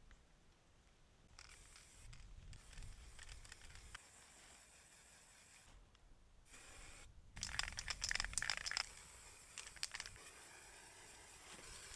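Intermittent scraping and rasping from hand work, with a run of quick, louder rasping strokes about two-thirds of the way in.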